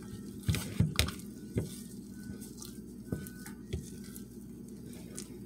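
A gloved hand squeezing and working soft, partly cooked corn dough for kenkey in a glass bowl: a wet squishing, with a few sharp knocks against the glass, most of them in the first second and a half.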